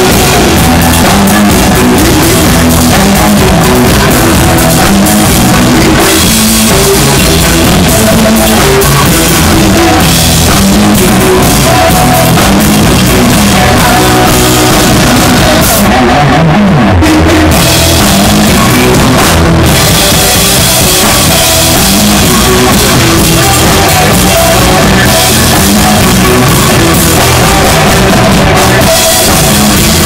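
Live blues-rock band playing loud: electric guitar, bass guitar and drum kit with cymbals, recorded close to the stage on a cell phone. The cymbals drop out for a moment about halfway through.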